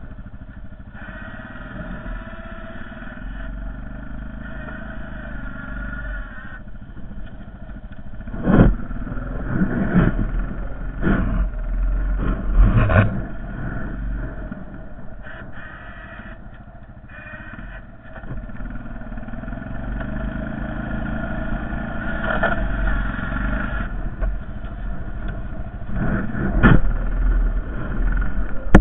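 Honda Foreman 450 ES ATV engine running under load while plowing snow, its revs rising and falling. Several sharp clanks and knocks break through it, bunched about a third of the way in and again near the end.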